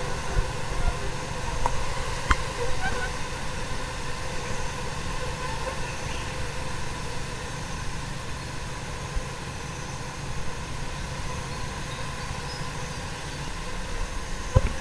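A dense swarm of small fruit flies buzzing close around the microphone: a steady hum of countless wings, with a brief click about two seconds in and another near the end as flies bump into the microphone.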